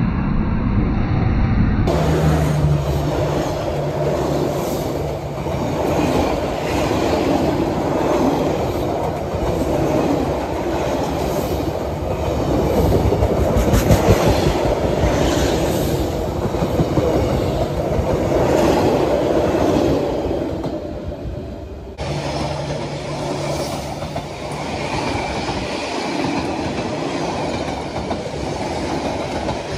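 Passenger train cars passing close by at speed: a steady rumble of steel wheels on the rails, with a regular clickety-clack as the wheels cross rail joints.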